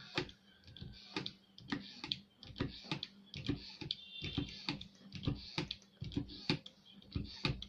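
Hand-operated hydraulic crimping tool being pumped to crimp a cable lug: its handle clicks twice with each stroke, a stroke a little under once a second.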